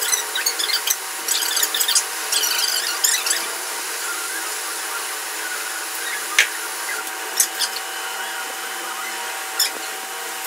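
Water from a hose splashing onto a soaked blanket on a wet tiled floor over a steady running-water noise, busy with short splashes for the first three seconds, then only a few sharp splashes or taps.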